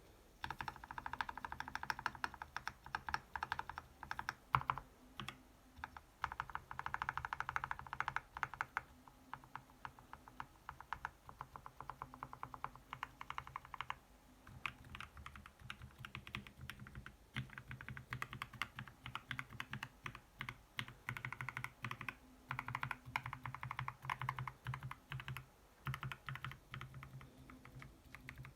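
FL-Esports MK870 mechanical keyboard with tactile Kailh Speed Copper switches and ASUS ROG PBT keycaps being typed on: fast runs of keystroke clacks, with a few brief lighter stretches between bursts.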